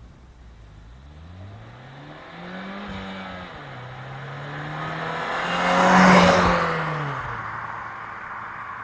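Opel Vectra C's 2.0-litre turbocharged four-cylinder engine (Z20NET) with stock exhaust, its note climbing under acceleration, dipping once, then rising again to its loudest about six seconds in before falling back to a steady lower note.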